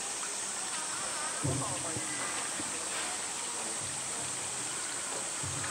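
Steady outdoor background of running water and a high, even cicada drone, with faint chatter of voices and one dull thump about one and a half seconds in.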